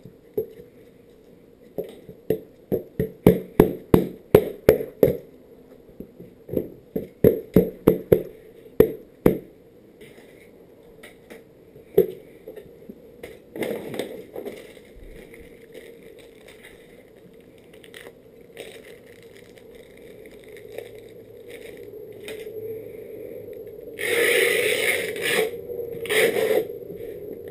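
Grip tape being worked onto a wooden skateboard deck: two runs of quick, sharp taps on the board in the first ten seconds, a short rustle of the grip tape's paper backing about halfway, then rough scraping and rubbing across the grip tape near the end.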